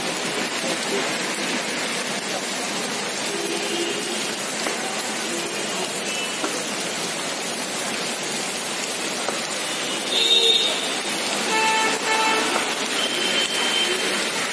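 Steady rain hiss over a city street, with vehicle horns honking several times from about ten seconds in.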